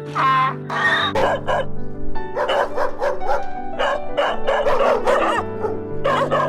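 A dog barking in quick, repeated barks with short pauses, over background music.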